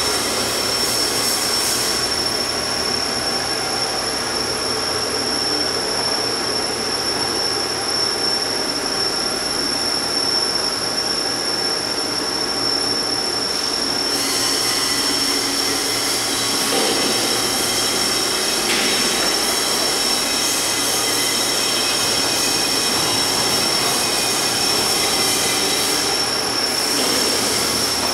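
Gun drill machine and its coolant and chip-filtering equipment running: a steady machine hum with a constant high-pitched whine over it.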